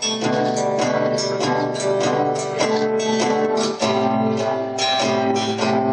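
Acoustic guitar strummed in a steady rhythm, an instrumental passage between sung lines of a song.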